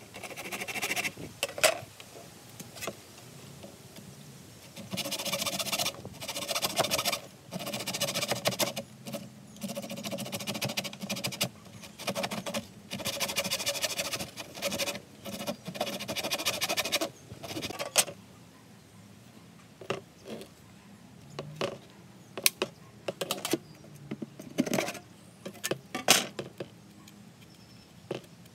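Hand saw cutting through 2-inch PVC pipe in several runs of quick back-and-forth strokes with pauses between. In the last third, scattered knocks and clicks as the cut piece and the saw are handled.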